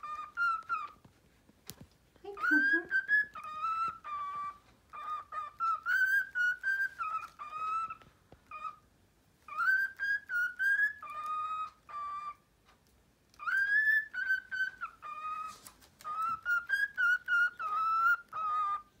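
Pet cockatiel whistling a tune: phrases of warbling, sliding whistled notes, repeated with short pauses between them.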